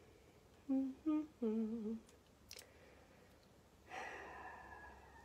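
A woman humming three short notes, the last one held a little longer and wavering. About four seconds in comes a fainter drawn-out tone that slowly falls in pitch.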